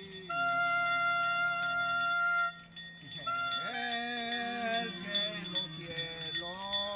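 Music: a melody of long held notes that slide between pitches about halfway through and again near the end, over a low steady drone.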